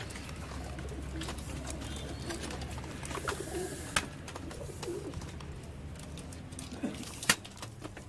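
Domestic pigeons cooing softly, over a low steady hum. Two sharp clicks, about halfway through and near the end.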